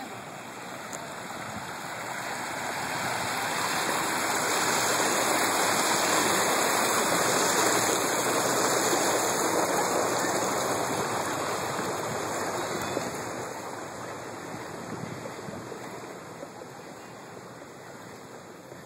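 Shallow water rushing and splashing along a fountain's stone channel. The rush grows over the first few seconds, is loudest in the middle, and fades after about twelve seconds.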